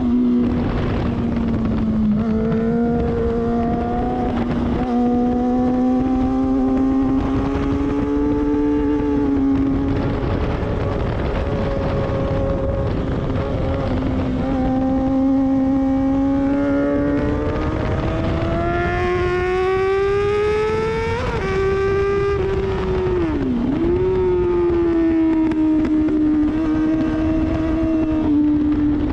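Sport motorcycle engine running hard at track speed, heard from a camera mounted on the bike. The engine note climbs steadily for several seconds, falls sharply at a gear change about two-thirds of the way through, then dips briefly and recovers a couple of seconds later.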